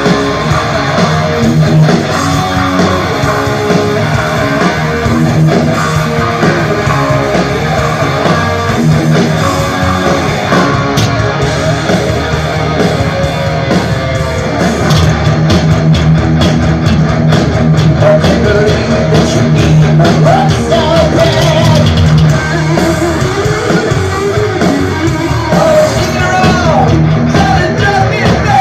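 Heavy metal band playing live at full volume: distorted electric guitars, bass and drums, with a singer's voice over the riff, plainest in the second half.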